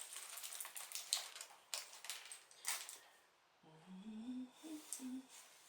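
Small plastic LEGO bricks clicking and rattling against each other as they are picked through by hand, then a short hum of a few rising notes from the builder about two-thirds of the way in.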